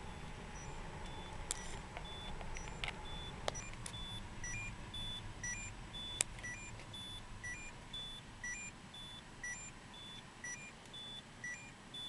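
A car's seatbelt reminder chime beeping over and over, about one and a half beeps a second, because the driver's belt is unfastened; about four seconds in a second, two-note beep joins it. Under it runs the low hum of the car rolling along.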